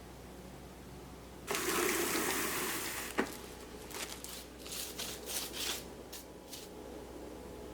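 Melted chocolate poured onto a marble slab for tempering, followed by a sharp knock and several short scrapes.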